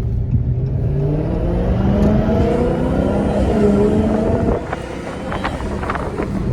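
Dodge Charger Hellcat's supercharged 6.2-litre V8 accelerating, its pitch climbing steadily for about four and a half seconds before the throttle comes off and the engine drops back to a lower, quieter note.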